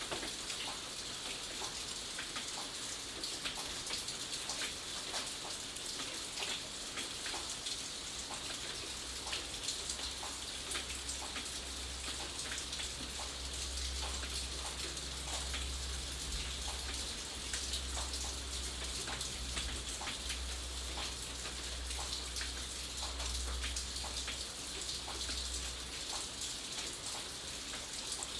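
Steady rain with many individual drops pattering on a surface. A low rumble sits underneath through most of the middle stretch.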